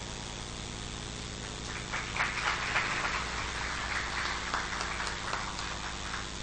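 Audience clapping, starting about two seconds in and dying down near the end, over a steady low hum.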